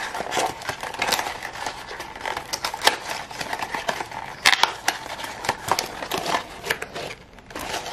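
Pink paperboard perfume box being torn open by hand: a run of quick, irregular rips and crackles as the card tears and crinkles.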